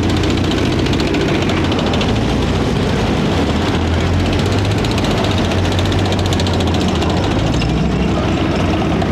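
Military vehicle engines running steadily as the parade column drives past: a low, continuous drone with a fast, even rattle above it.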